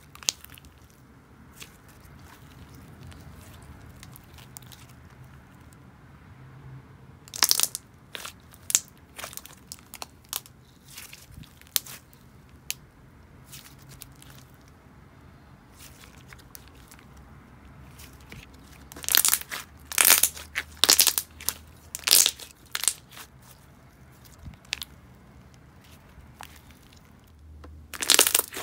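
Thick glossy clear slime mixed with cloud slime being stretched, folded and squeezed by hand, giving scattered sharp clicks and pops. The clicks come in busier runs about seven seconds in and again from about nineteen to twenty-three seconds in.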